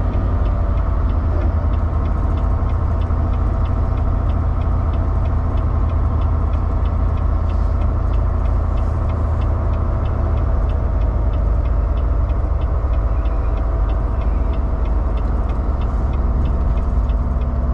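Semi truck's diesel engine and road noise heard from inside the cab while driving at low speed: a steady low rumble with a faint, regular ticking.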